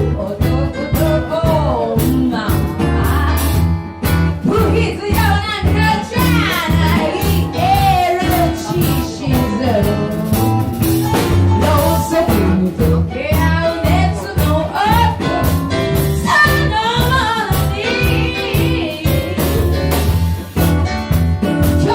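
A song with a lead vocal singing a melody over a band's steady bass and chord accompaniment.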